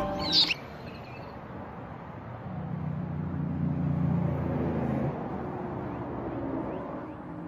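A low, steady hum swells about two seconds in and fades out around five seconds, over faint background hiss. Music cuts off in the first half-second.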